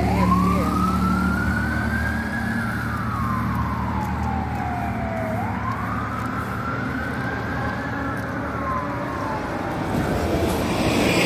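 Fire department emergency vehicle's siren on a slow wail: it climbs for about two and a half seconds, falls for about three, then rises and falls once more. A steady low vehicle hum runs beneath it.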